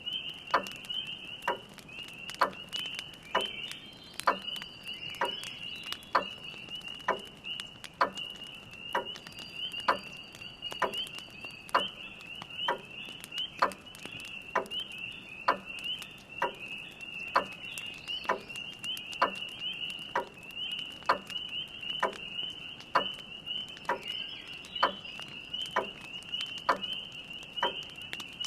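A dense chorus of spring peepers, a steady high peeping, with a grandfather clock ticking about once a second and a wood fire crackling lightly.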